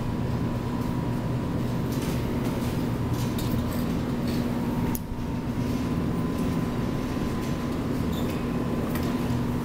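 Claw crane machine running with a steady electric hum and motor drone while the claw is moved and dropped, with faint clicks; the sound dips briefly about five seconds in.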